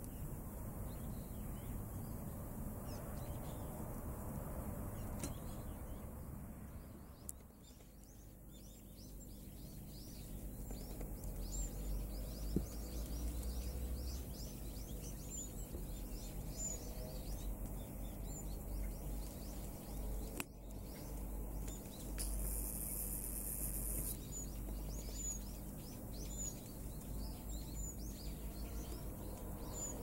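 Outdoor background noise with a steady low rumble, and faint short bird chirps scattered through it, more frequent after the first several seconds. A brief high hiss sounds about three quarters of the way through.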